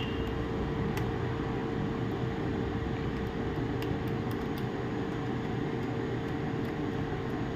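Steady mechanical room hum with one constant tone, like a fan or air conditioner running, with a few faint light clicks.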